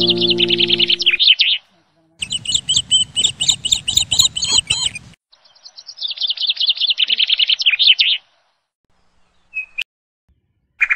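Small songbird chirping in three runs of rapid high trills, each one to three seconds long with short gaps between, and a couple of faint chirps near the end. A soft harp-like tune fades out under the first run.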